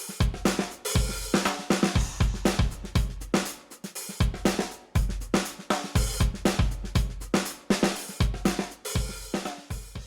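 Background music led by a drum kit: kick drum, snare and cymbals keeping a driving beat, which stops abruptly at the end.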